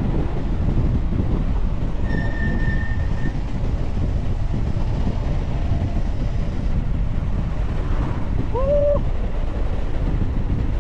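Steady low rumble of wind buffeting the microphone, with a brief thin high tone about two seconds in and a short rising tone near the end.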